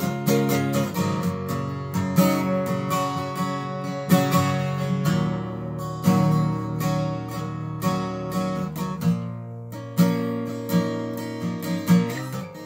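Acoustic guitar played solo: an improvised riff of picked notes and strums, each attack ringing on over sustained low bass notes.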